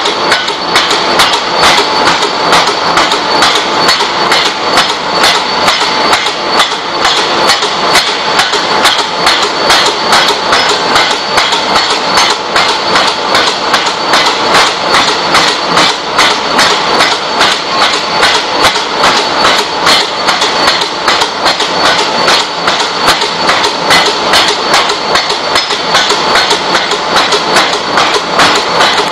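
Large open-die forging hammer striking a red-hot round workpiece in a fast, steady run of heavy metal blows, several a second.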